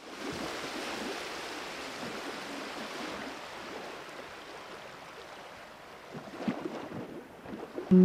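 Paper rustling and sliding as hands fold and press a scrapbook-paper envelope on a desk, a steady hiss with a few soft taps and touches near the end.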